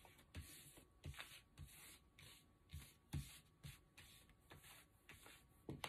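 Faint rustling, sliding and light taps of tarot cards being handled and gathered on a cloth-covered table, a dozen or so soft irregular touches.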